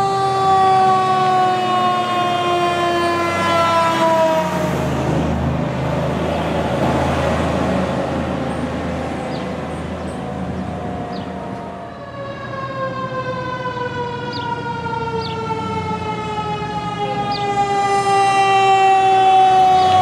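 Fire truck sirens: a long siren wail sliding slowly down in pitch, then a few seconds of rushing truck and road noise, then another siren wail that again slides slowly down.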